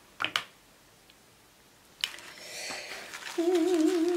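Quiet for about two seconds, then tissue paper crinkling as hands handle a wrapped package. Near the end a person hums a single wavering note, louder than the paper.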